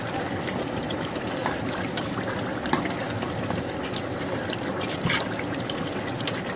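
A pot of pondu (cassava leaves) at a rolling boil, bubbling steadily, with a few light clicks.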